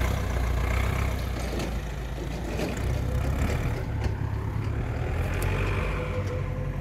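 Audi A6's 2.0 TDI (BRE) four-cylinder turbodiesel idling steadily under the open bonnet.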